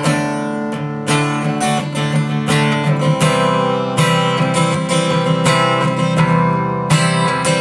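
Acoustic guitar strumming chords, the chord changing a few times.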